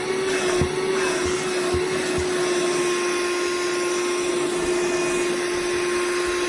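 Shark Pet Perfect cordless handheld vacuum running steadily at full speed: a constant motor whine over a rush of air, with a few faint knocks in the first couple of seconds.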